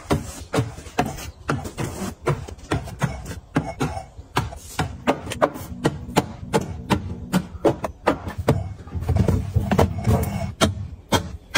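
Items being handled and set down: a quick, irregular run of clicks, taps and knocks, about three or four a second, as containers and products are placed and arranged.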